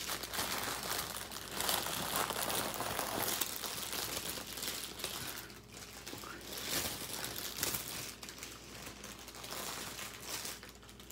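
Crinkling and rustling of thin plastic packaging being handled: small plastic bags of diamond-painting drills and the canvas's clear plastic cover. It comes in irregular bursts, busiest in the first five seconds, with a short lull about halfway through.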